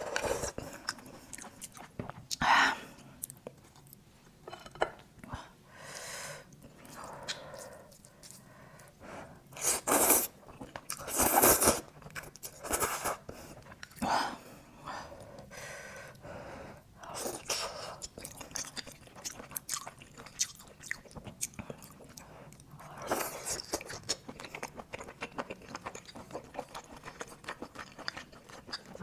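Close-up eating sounds of grilled garlic oysters: wet chewing and biting, with a few louder noisy bursts about two and a half, ten and eleven and a half seconds in as oysters are sucked from the shell.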